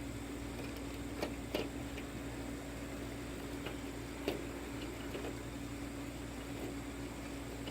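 A steady machine hum, like a fan or motor, with a few light clicks and taps scattered through it, the sharpest about four seconds in.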